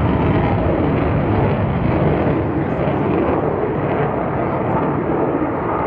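Loud, steady jet engine noise from a fighter jet flying a display, a dense rushing sound heavy in the low end, with no distinct tones.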